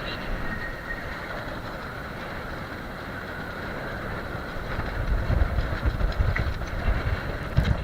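Strong wind buffeting the microphone: a steady rushing noise, with heavier low gusts thumping in from about halfway through.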